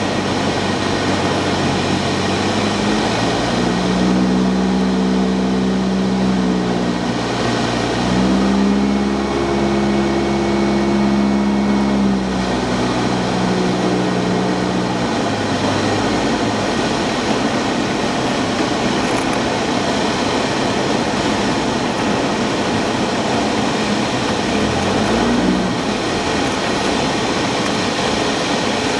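Cessna 172's piston engine and propeller heard from inside the cabin on a landing approach: a steady loud drone with wind noise, whose hum changes pitch several times in the first half as power is adjusted, then settles into an even rush of noise as the plane glides down to the grass strip.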